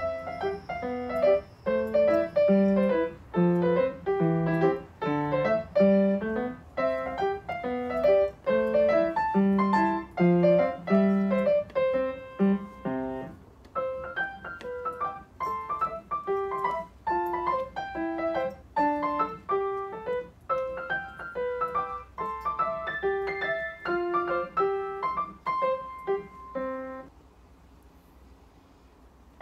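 Solo piano music playing a gentle tune: lower notes under the melody in the first half, then higher notes only, breaking off about two seconds before the end.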